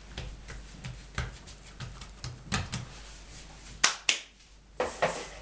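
Hands patting and pressing a slab of butter-filled puff pastry dough on an oilcloth-covered table: a run of soft slaps and taps, with two sharper knocks about four seconds in and a short rustle near the end.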